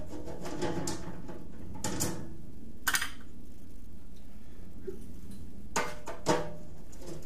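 Scattered clicks, clinks and knocks from hands working on a combat robot's metal chassis and top panel, over a steady low hum. The sharpest knocks come about three seconds in and about six seconds in.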